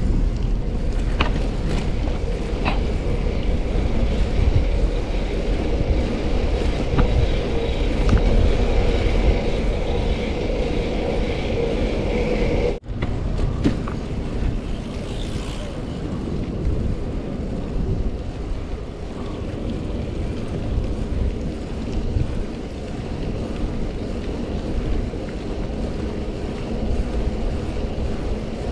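Wind buffeting the microphone of a chest-mounted GoPro Hero 9 while riding a bicycle, heard as a steady low rumble. A faint steady hum runs under it in the first half, and the sound cuts out for an instant about 13 seconds in.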